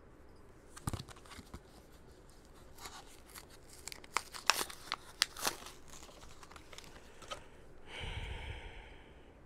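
Clear plastic blister packaging being torn and pried open off its card backing: a run of sharp crackles and crinkles, loudest and densest in the middle.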